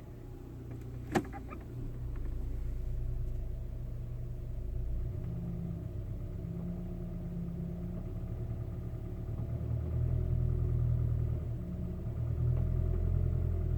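2010 Toyota RAV4 engine running under load, with a knocking, tapping noise that the owner wonders is piston slap and that fades once the engine reaches full operating temperature. There is one sharp click about a second in, and the engine gets louder near the end.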